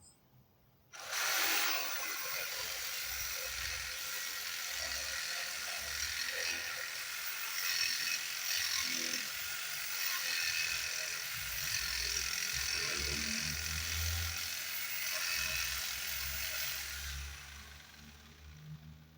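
An electric power tool starts abruptly about a second in and runs at full speed while working wood, with a dense, high-pitched noise. Near the end it winds down as the motor spins to a stop.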